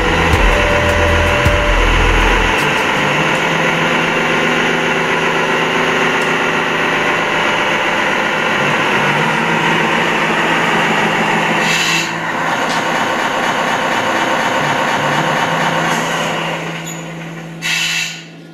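Radio-controlled model trucks and construction machines running: a dense, steady engine-and-motor noise with a deep rumble in the first couple of seconds. It fades out near the end, with a short hiss just before it stops.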